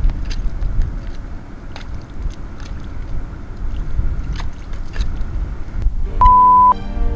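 Wind buffeting the microphone with a low rumble, with scattered light clicks. About six seconds in, a short loud steady beep sounds and background music begins.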